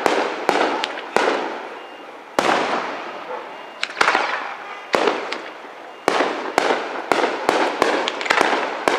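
Aerial firework shells bursting in a series of sharp bangs, each trailing off in a long echo. After a short lull in the first half, the bangs come faster and closer together toward the end.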